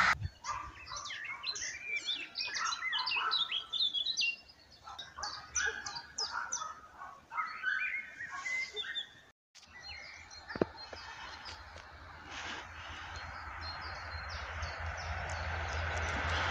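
Small birds chirping and singing in quick, busy phrases. After a short break about nine seconds in, fainter chirps continue over a low rumble that grows steadily louder as a Newag Griffin EU160 electric locomotive approaches.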